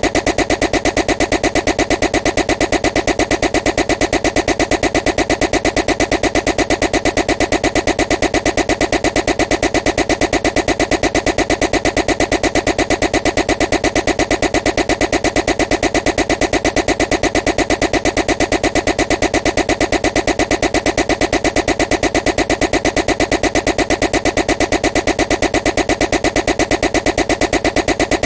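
A loud, harsh, steady buzzing noise that pulses rapidly and evenly, without any change: a deliberately annoying noise kept going on a loop.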